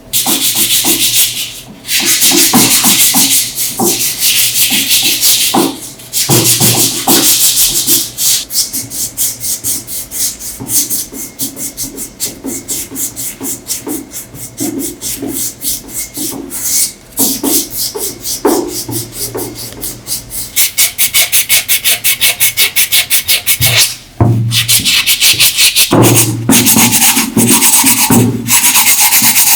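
Abrasive rubbing on metal in fast, even strokes, like sanding or filing. It stops briefly several times and starts again.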